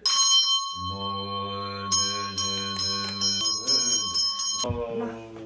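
Music: ringing bell tones over a low steady drone, with a quick run of struck notes in the middle, starting suddenly and cutting off abruptly near the end.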